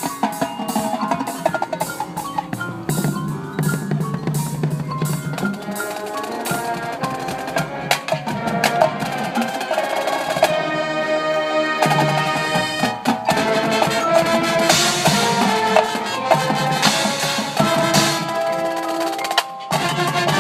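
High school marching band playing, with drums and percussion prominent under held pitched notes. About ten seconds in the drums thin out for a couple of seconds under a sustained chord, then return.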